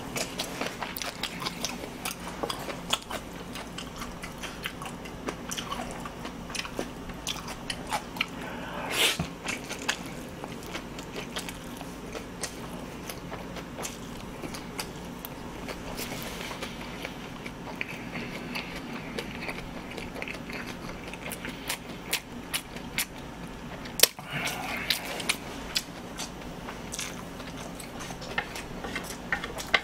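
Close-miked mouth sounds of a person eating cold mixed noodles: chewing, wet lip smacks and clicks, and a few longer slurps of noodles being sucked in.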